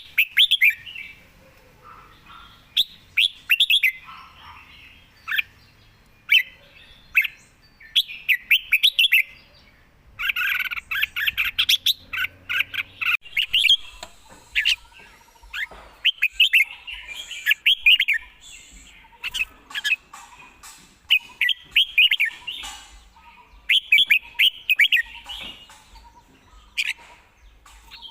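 Red-whiskered bulbul singing short, quick phrases of clear chirping notes, one phrase after another with brief pauses between them, including one longer run of song about ten seconds in.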